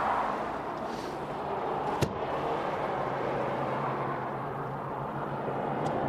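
Steady traffic noise with a low hum, and a single sharp click about two seconds in.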